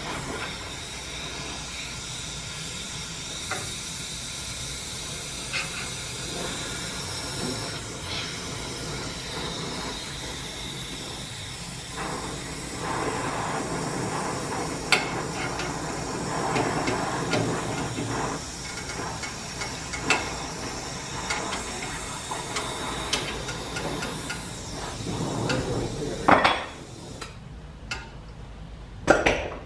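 Gas torch flame hissing steadily as it heats a steel rod clamped in a bending jig, with a few sharp metal clicks. The hiss cuts off about 26 seconds in, and a couple of louder metal knocks follow.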